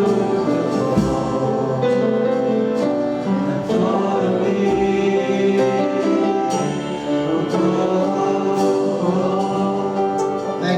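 Congregation and worship band singing a slow worship song together, with sustained voices over instrumental accompaniment.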